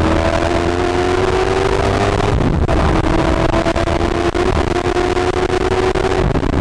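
Katech-built V8 of a C6 Corvette Z06 race car heard from inside the cockpit, pulling hard on track. The engine note climbs, drops briefly about two and a half seconds in, then climbs slowly again.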